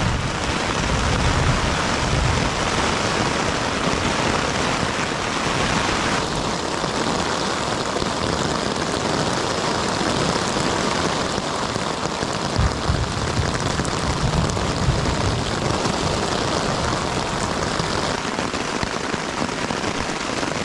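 Heavy rain falling steadily and hard during a thunderstorm, a dense, even hiss. A low rumbling swells in about a second in and again about twelve seconds in.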